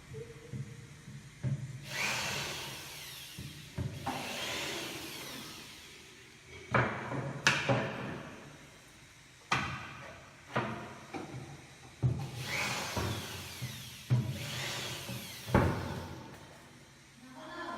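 A power drill driving screws into plywood cabinet parts in four bursts of a second or two each. Sharp knocks on wood fall between the bursts.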